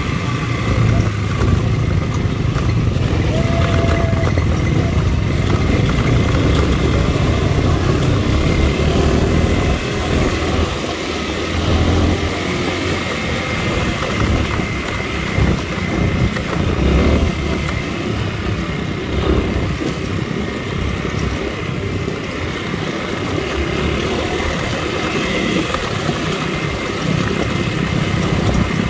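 Dirt bike engine running while the bike is ridden, loud and continuous with the level rising and falling.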